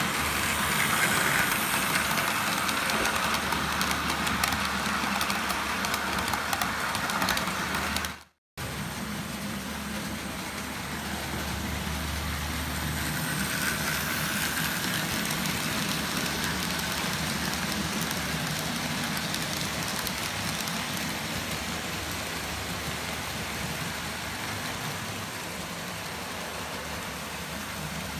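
OO-scale model train running on the layout's track: a steady hum and rumble of the locomotive's motor and the wheels on the rails. The sound cuts out briefly about eight seconds in, then carries on.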